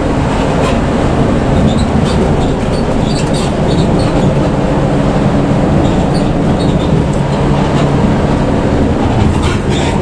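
Steady, loud running noise inside a moving coach bus: the Hino RK bus's engine and road noise, with scattered light rattles and ticks from the cabin.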